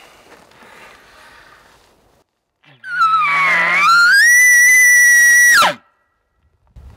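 Imitation bull elk bugle blown through a hunter's bugle tube. It starts with a low grunt under a whistle that dips, then climbs to a high note held for about a second and a half, and breaks off with a sharp drop.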